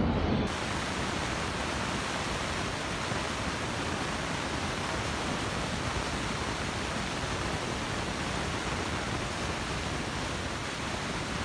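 Steady, even rushing noise of a subway station platform, starting suddenly about half a second in and holding at one level, with no train yet heard.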